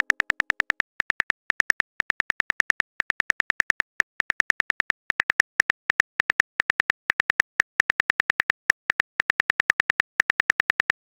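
Rapid keyboard tap clicks of a phone's on-screen typing sound, about eight a second, in runs broken by short pauses as a text message is typed out.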